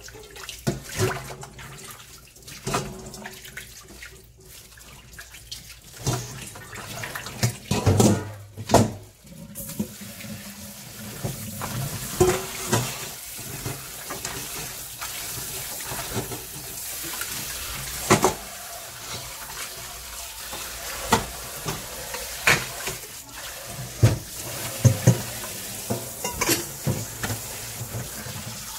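Kitchen tap running into a stainless steel sink as raw beef short ribs are rinsed by hand in a colander, with knocks and clatter of the metal colander and bowls. The tap comes on about ten seconds in; before that there is only handling clatter.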